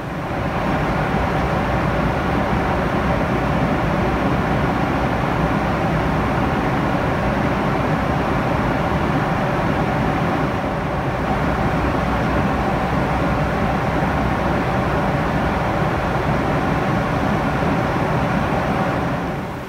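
Steady cabin noise of a Rolls-Royce-powered Boeing 747-400 in cruise, heard from a window seat beside the wing: rushing airflow and the drone of its RB211-524 engines, with a faint steady hum running through it.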